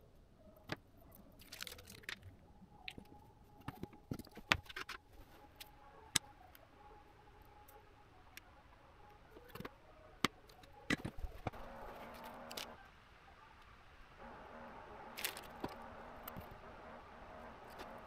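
Workbench handling noise: scattered light clicks and taps as a bare circuit board and tweezers are picked up and set down on the bench mat, with a soft rustle later on.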